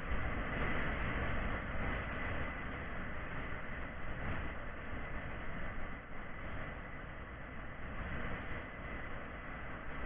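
Steady rushing, vehicle-like noise with a faint, steady high whine running through it.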